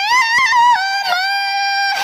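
A young woman's high voice in melodic Quran recitation (tilawah), amplified through a microphone. She holds one long note that climbs and wavers in ornaments during the first second, then settles and is held steady.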